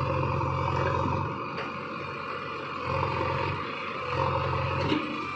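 Diesel engines of a JCB 3DX backhoe loader and a Sonalika DI 42 tractor running, their deep note swelling and dropping back a few times as the engines take load.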